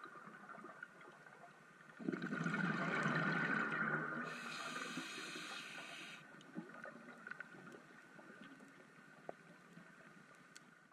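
Scuba diver breathing on a regulator, heard underwater: a loud gush of exhaled bubbles about two seconds in, then a high hiss of air through the regulator for about two seconds.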